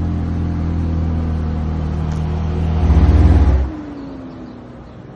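McLaren 720S twin-turbo V8 running, with a steady low note. About three seconds in it rises in a short louder rev, then drops away sharply, leaving only a faint falling tone.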